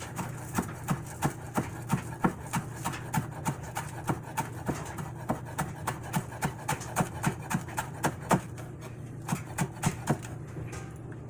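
Kitchen knife chopping green onions on a cutting board: steady knocks about three a second, stopping about a second before the end.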